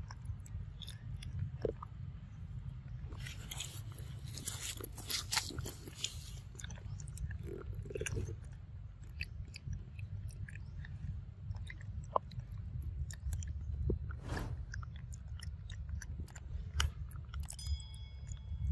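A macaque biting into and chewing ripe mango flesh: wet, smacking clicks from its mouth, busiest a few seconds in, over a steady low rumble.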